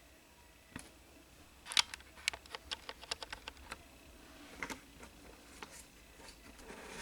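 Handling noise: a sharp knock about two seconds in, followed by a quick run of about eight light clicks and taps, with a few scattered clicks besides.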